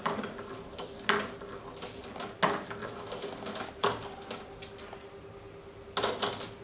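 Glass marbles clicking against each other and against the cardboard track as they are set on a cardboard marble run and bunch up at the end of the track. Separate sharp clicks come every second or so, with a quick cluster of clicks near the end.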